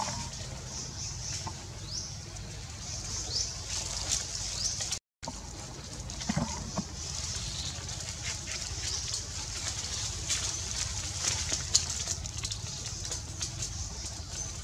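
Outdoor ambience in a tree canopy: a steady high hiss with scattered light ticks and a few faint short chirps. The sound drops out for a moment about five seconds in.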